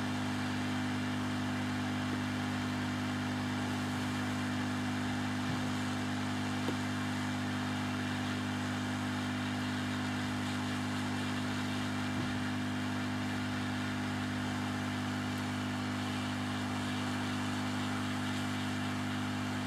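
Hot air rework gun blowing steadily at 50% airflow onto a circuit board to reflow solder paste under surface-mount resistors: an even motor hum under a rushing hiss of air, with two faint ticks.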